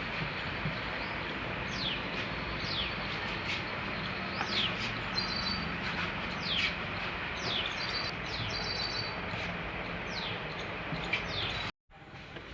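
Small birds calling: a series of quick, high, falling whistles about once a second, mixed with short clipped chirps, over a steady hiss and low hum. The sound drops out abruptly for a moment near the end.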